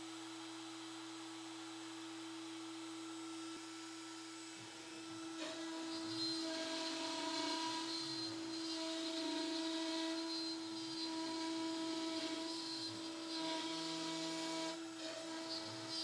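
Makita trim router on a Onefinity CNC, spinning with a steady whine. From about four and a half seconds in, the bit cuts a profile into a wood sheet, and the sound grows louder and rougher and shifts with the load.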